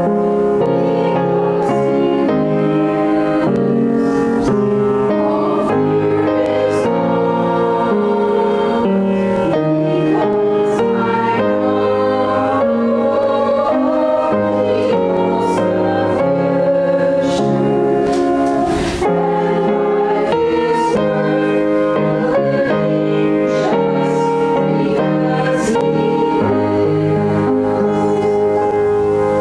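A small group of women singing a hymn together in harmony, with instrumental accompaniment. The voices stop near the end while the music goes on.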